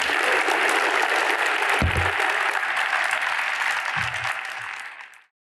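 Audience applauding steadily, easing slightly near the end and then cut off abruptly, with two low thumps under it.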